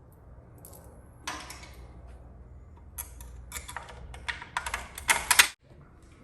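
A run of sharp clicks and rattles over a faint low hum, coming thicker and louder toward the end, then cutting off suddenly about five and a half seconds in.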